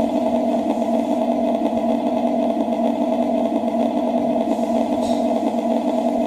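A TK22 sound board in a model Panther G tank plays its engine idle sound through the tank's small speaker as a steady, unchanging hum. This humming at idle is the fault being checked; the owner blames the board.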